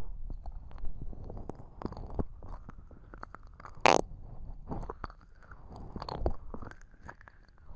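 Close-up wet mouth sounds of slow ear licking into a binaural microphone: licks and lip smacks with scattered wet clicks, one sharper smack about four seconds in.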